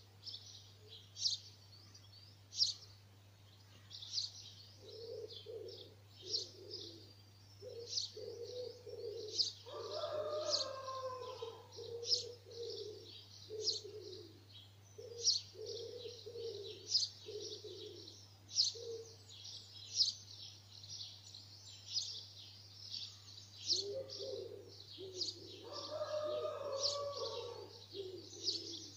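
Dawn chorus: small songbirds singing and chirping with sharp high notes about once a second, over a pigeon cooing in low repeated phrases through much of the time, pausing for a few seconds in the middle.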